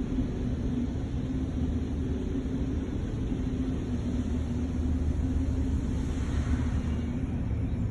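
A machine's steady low hum and rumble, with an even tone held throughout.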